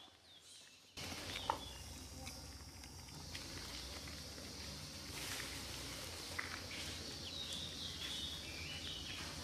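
Outdoor ambience: a steady high hiss with a low rumble, starting suddenly about a second in, with a few faint clicks and a faint, high, wavering call near the end.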